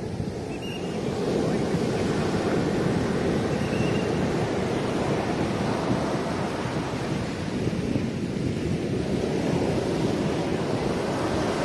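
Sea surf: waves breaking and washing up over a sandy beach in a continuous, rushing wash that swells and eases a little.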